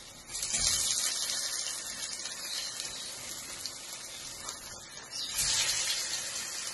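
Batter-coated stuffed plantains sizzling in hot oil. The sizzle surges as one is lowered into the oil about half a second in, settles to a steady hiss, then surges again as another goes in near the end.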